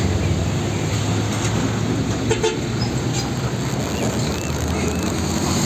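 Diesel engine of a Mitsubishi Fuso 6x2 tanker truck running with a steady low rumble as the truck drives slowly past, with road traffic behind it.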